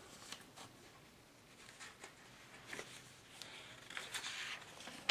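Faint rustling and light taps of a paper booklet being handled and its pages turned. The rustle is strongest about three and a half to four and a half seconds in, and a short click comes at the end.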